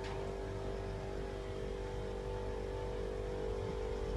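Double-door stainless steel fridge-freezer running with a steady electrical hum, with a short click right at the start.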